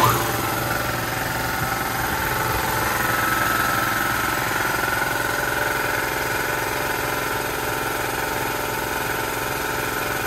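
Belt-driven electric piston air compressor on a vertical tank (Chicago Pneumatic) starting up all at once and then running steadily, pumping up its tank. Pretty loud.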